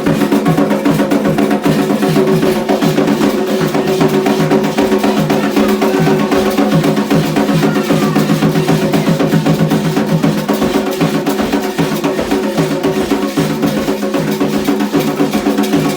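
Candomblé ceremonial percussion: drums beaten in a fast, dense rhythm over steady sustained tones.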